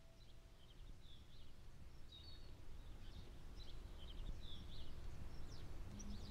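Faint outdoor ambience: small birds chirping in short, repeated calls over a low rumble that slowly grows louder.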